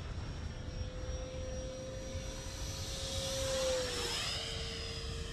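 Electric 3D-printed Mirage 2000 RC jet flying past: a steady motor whine with a rush of air that grows louder as it nears. Its pitch drops as it passes about four seconds in.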